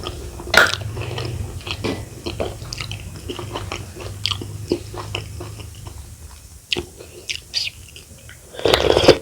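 Close-miked chewing and mouth sounds of someone eating, with many short wet clicks and smacks and a louder cluster near the end.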